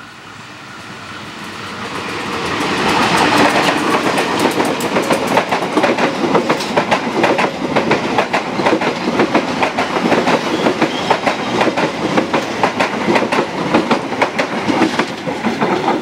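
A KAI passenger train hauled by a diesel-electric locomotive approaches and passes close by, growing steadily louder over the first three seconds or so. The carriage wheels then clack rapidly and rhythmically over the rail joints until the train moves off near the end.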